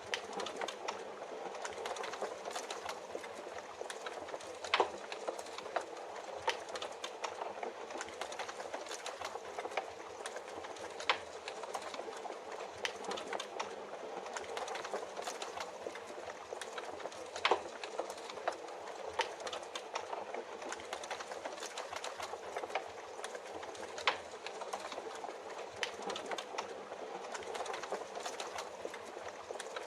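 Rain falling steadily with a wood fire crackling over it: a constant hiss broken by frequent sharp pops and crackles, a few louder ones standing out.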